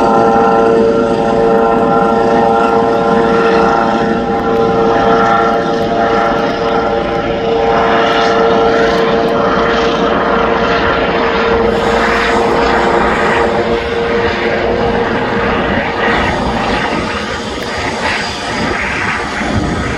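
Air-ambulance helicopter flying away: a steady rotor and turbine noise with a high whine that fades out about three-quarters of the way through as the helicopter draws off.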